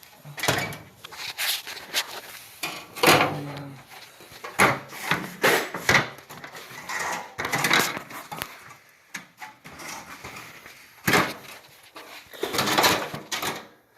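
A ladder being got out and handled: an irregular series of knocks, clunks and clatters, with a few sharp loud bangs.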